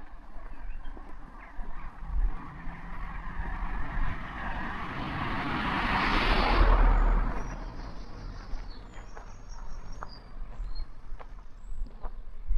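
A car driving past, its tyre and engine noise swelling to a peak about six to seven seconds in, then fading away.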